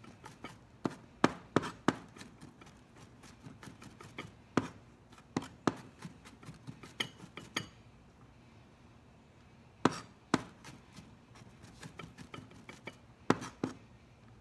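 Chef's knife mincing garlic on a plastic cutting board: quick, uneven knocks of the blade on the board, with a short pause a little past the middle.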